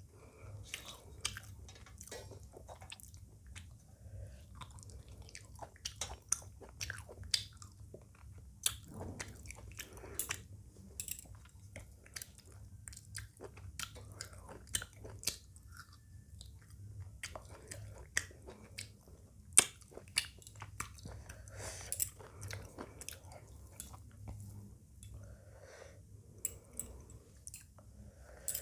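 Close-up chewing of a meal of rice, chicken curry and raw salad: irregular wet mouth smacks and clicks, with occasional crunches.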